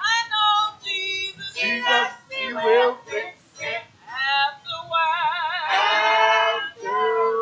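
Church praise team singing into microphones, women's voices leading, with a long held note sung with vibrato about five seconds in.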